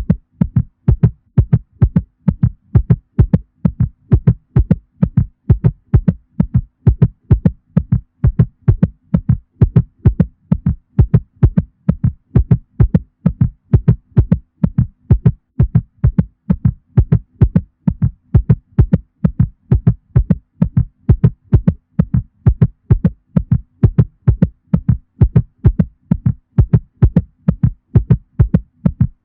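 Cat heartbeat sound effect: a fast, even train of dull thumps in double beats, running steadily without a break, over a faint low hum.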